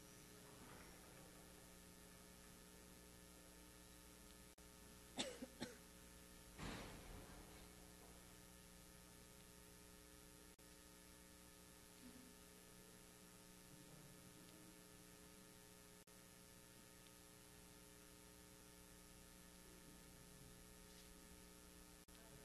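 Near silence with a steady electrical hum. About five seconds in come a few short, sharp sounds, then one longer, louder sound a second and a half later.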